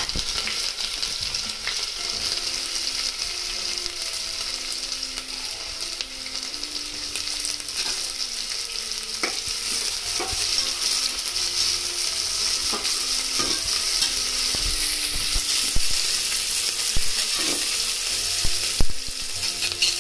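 Chopped onions frying in hot oil in an aluminium pressure cooker: a steady sizzle, with a few short taps and scrapes of a metal spatula stirring them.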